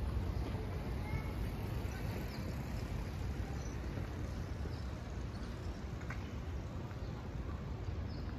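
Street ambience heard while walking: a steady low rumble of wind on the microphone, with faint footsteps and a few scattered small clicks.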